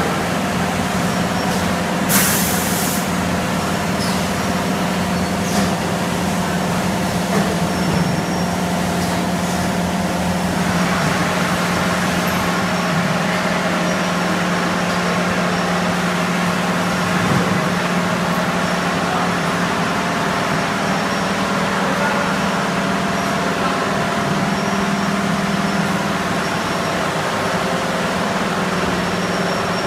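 A 5-gallon bottled water filling line running, with a steady machine hum. A short hiss of air comes about two seconds in, and a broader hiss joins about ten seconds in and carries on.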